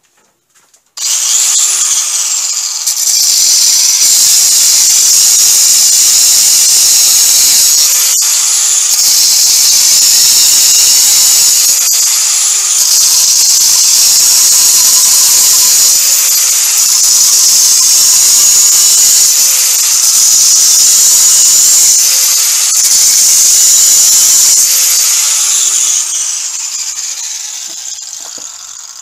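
Handheld angle grinder with its disc cutting through a rod clamped in a vise. It is a loud, high whine with a hissing grind, and the pitch sags briefly every few seconds as the disc is pressed into the cut. Near the end it spins down.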